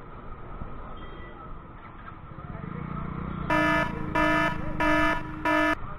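Four short buzzy beeps from a vehicle horn in quick succession over a steady rumble of wind and road noise.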